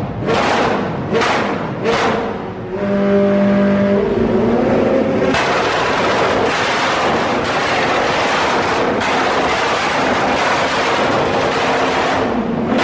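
Performance car engine revved hard in three quick blips, followed by a long, loud continuous run of engine noise.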